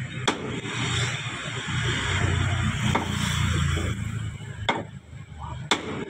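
Hammer blows on a metal bar braced against a car's crumpled front wheel arch: about four sharp strikes spaced one to two seconds apart, over a steady low rumble. This is panel beating, knocking crash damage out of the body before filling and sanding.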